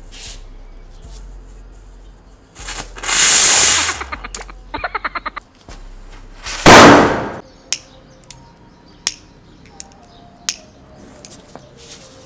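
Small firecrackers taped to water balloons going off: a loud fizzing blast about three seconds in, a rapid string of about ten crackles, then a second loud blast midway, followed by a few scattered sharp pops.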